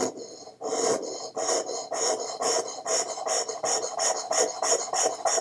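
A dental enamel hatchet's blade is scraped across a flat sharpening stone in quick repeated strokes, about four a second, getting faster after the first second. These are sharpening strokes that grind a 45-degree bevel on the instrument's cutting edge.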